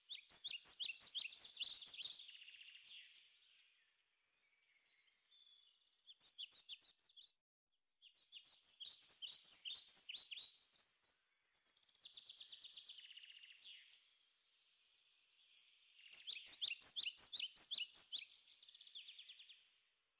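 A small songbird chirping and trilling quietly in several separate phrases of quick repeated notes, with short pauses between them.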